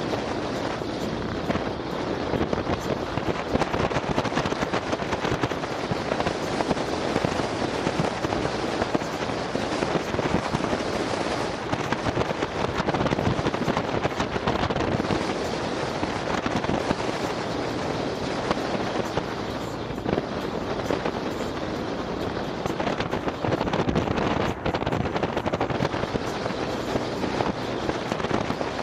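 Steady wind rush with crackling buffeting on an action camera's microphone while riding in an open Polaris Slingshot, with road and engine noise underneath.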